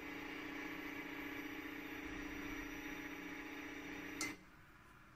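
Universal tensile testing machine's crosshead drive running as the grip is jogged with the control-panel button: a steady motor hum that stops suddenly with a click about four seconds in.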